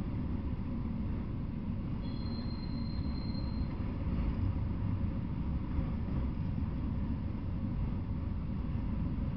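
Freight train of autorack cars rolling past, a steady low rumble of wheels on rail. A faint high-pitched tone sounds briefly about two seconds in.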